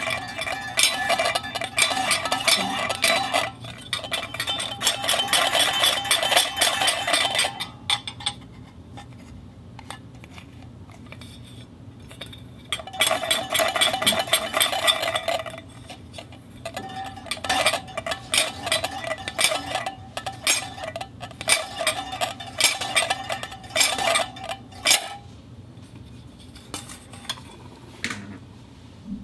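A metal dog bowl rattling and clinking with a ringing tone, in bursts: a long one at the start, another in the middle and several shorter ones near the end.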